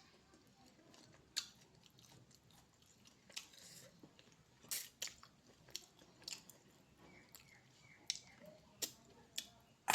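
Close-up mouth sounds of a person eating: chewing, with about ten sharp, irregular wet clicks and crunches.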